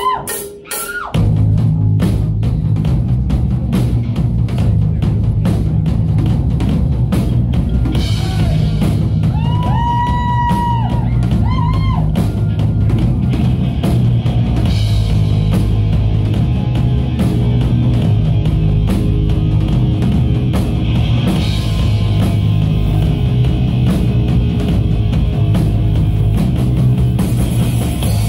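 Live rock band playing an instrumental intro: drum kit, bass guitar and distorted electric guitars. After a few single guitar notes, the full band comes in about a second in and plays loud and steady, with a held lead-guitar note around ten seconds in.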